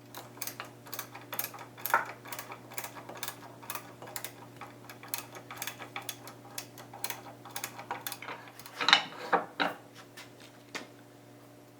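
Screwdriver working on the vise hardware: a steady run of small clicks, about three a second, with a louder clatter of a few knocks about nine seconds in. A faint steady hum lies underneath.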